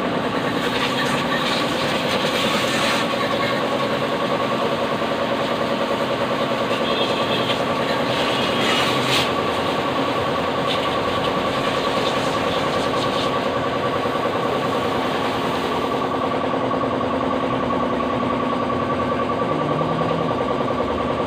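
Pressure washer running steadily while spraying water into a car's engine bay: a constant motor hum under the hiss of the spray.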